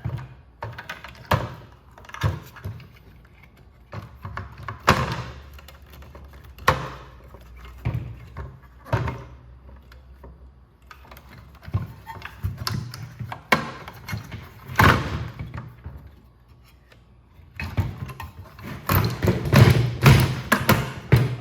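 Scattered knocks and thunks of parts and tools being handled on a workbench, with a busier, louder run of clattering near the end.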